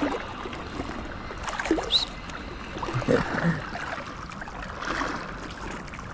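Shallow Baltic sea water sloshing and lapping, with a few brief splashes, as a hooked garfish is reeled in close.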